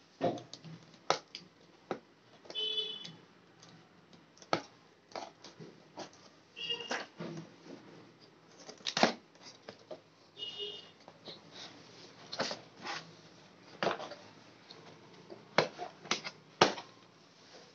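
Hands handling and opening a small cardboard camera box: scattered taps, knocks and rustles of cardboard, with a few short high squeaks.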